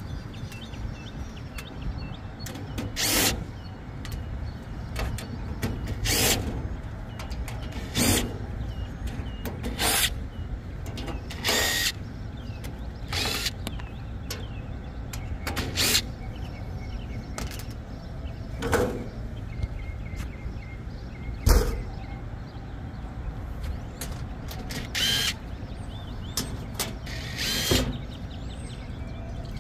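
Cordless drill/driver running in short bursts, about a dozen times, every two to three seconds, backing out the sheet-metal screws of an AC unit's access panel. A steady low rumble sits underneath.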